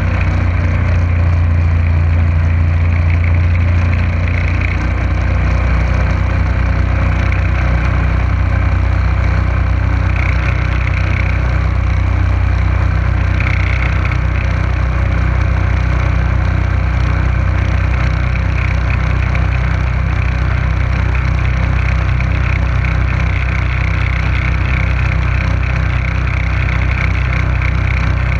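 Motorboat engine running steadily at cruising speed, a loud low drone with water rushing and churning in the wake behind the boat.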